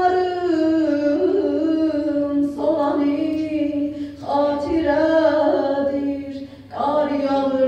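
A young woman singing unaccompanied into a microphone: long held, ornamented phrases with short breaths between them, in Azerbaijani.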